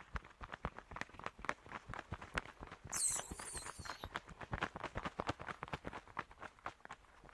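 A bat's wings flapping rapidly, in quick irregular flutters, with a high, wavering squeal about three seconds in that lasts about a second.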